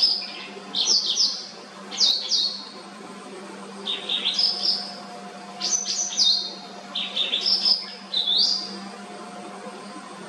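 White-browed wagtail singing: short phrases of quick, high, mostly falling whistled notes, one phrase every second or two.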